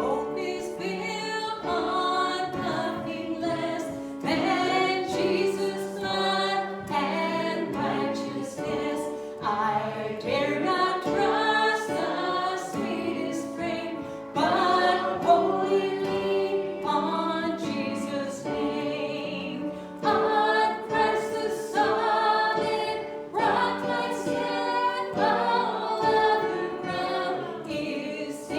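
A church congregation singing a hymn together in sustained, phrased lines, over held accompanying notes.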